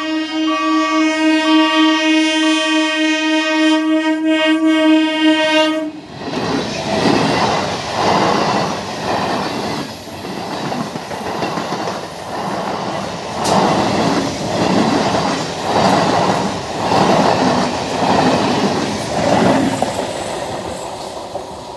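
EMU local train sounding a long, steady horn for about the first six seconds, with a higher tone pulsing alongside it. The horn then stops and the train runs past fast, its wheels clacking over the rail joints in a regular beat about once a second. The sound fades as the last coaches go by near the end.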